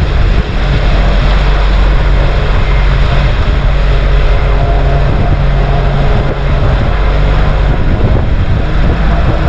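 Motorboat engine running steadily at cruising speed, with a steady rush of wind and water as the hull planes along.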